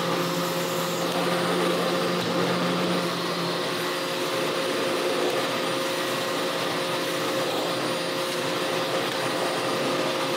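Canister vacuum cleaner running steadily as its floor head is pushed over a padded fabric pet mat.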